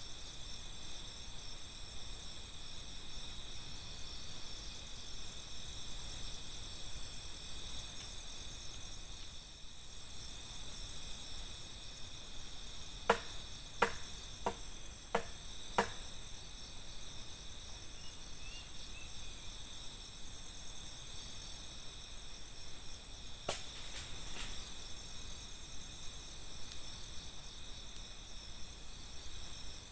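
Steady night chorus of crickets and other insects, with several high, even trilling tones. About halfway through, five sharp knocks come roughly two-thirds of a second apart, and three more come about ten seconds later.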